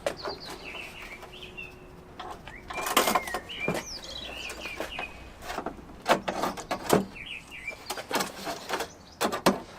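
Several knocks and clunks as a car bonnet is handled and lined up on its hinges, loudest about three seconds in and again around six and seven seconds. Small birds chirp in the background between the knocks.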